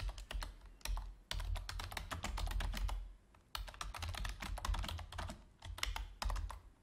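Typing on a computer keyboard: quick runs of keystrokes, with a short pause about three seconds in.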